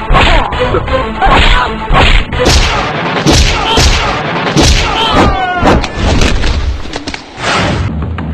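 Loud, heavy thuds repeating at a fairly even pace, about every two-thirds of a second, over music, with a short falling tone about five seconds in.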